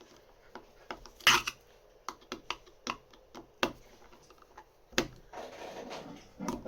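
Irregular small clicks and taps of LaGard 2200 lock parts being fitted back together by hand, with one louder clack about a second in and a short rustling stretch near the end.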